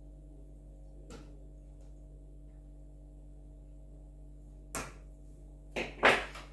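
Clicks and knocks from handling parts and cables inside a PC case: a faint click about a second in, a sharper one near five seconds, then two louder knocks in quick succession near the end. A steady low hum underlies it.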